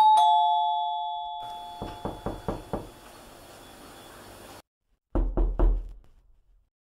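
Two-note ding-dong doorbell chime, falling in pitch and ringing away slowly, followed by knocking on a door: five quick knocks about two seconds in, then three louder knocks near the end.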